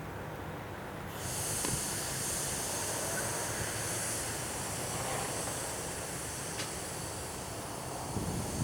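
Freight train cars rolling past with a steady low rumble. About a second in, a loud high hiss comes in suddenly and holds, with a few sharp clicks near the end.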